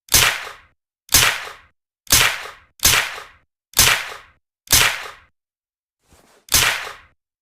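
Suppressed Uzi submachine gun fired in single shots, each a sharp crack that fades over about half a second, coming roughly once a second. Seven shots in all, with a faint softer one just before the last.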